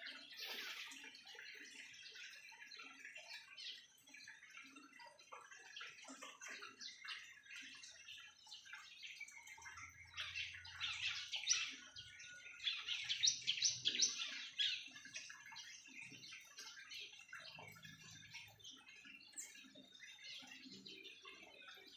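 Small caged birds chirping and calling, many short overlapping chirps; about ten seconds in, a louder run of rapid chirps lasts for a few seconds.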